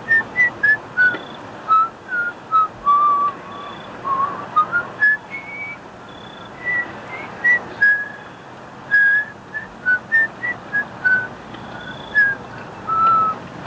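Someone whistling a slow, wandering tune of short high notes, some sliding up or down, with irregular gaps between them.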